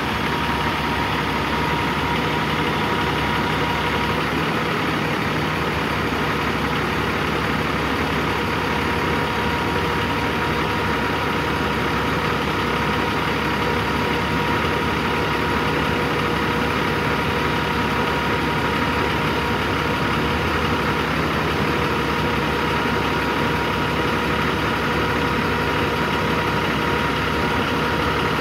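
A 2007 Peterbilt 357 crane truck's 15-litre six-cylinder diesel engine idling steadily, with a steady high whine running along with it.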